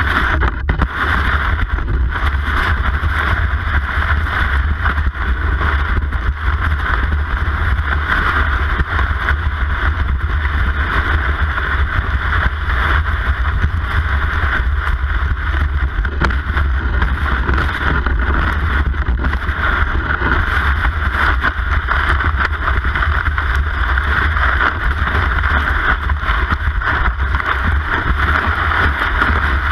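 Cross-country ski gliding over groomed snow, heard through a camera mounted on the ski itself: a steady rushing hiss of the ski base on the snow over a constant low rumble carried up through the mount, with some wind on the microphone.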